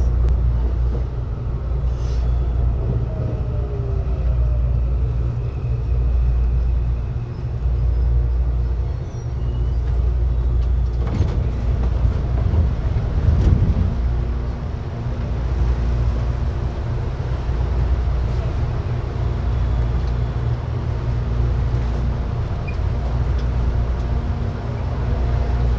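Inside a CPTM Line 8 electric commuter train as it slows to a stop at a station: a steady low rumble, with a falling whine in the first few seconds. A couple of brief knocks come near the middle, then a faint steady hum while the train stands.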